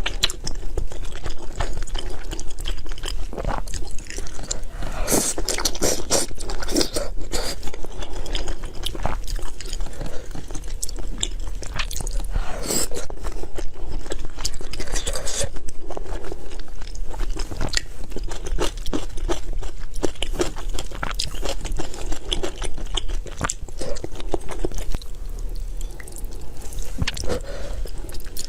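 Close-miked chewing and biting with frequent crunching, irregular crackles and clicks throughout.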